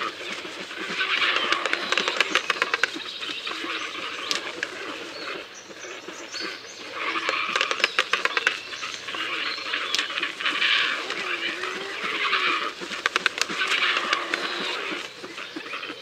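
A flock of birds giving hoarse, honking calls that swell and fade every second or two, with many sharp clicks among them.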